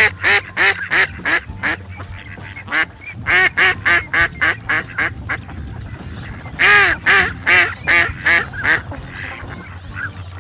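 Duck quacking in three quick runs of loud, short quacks, several calls per run.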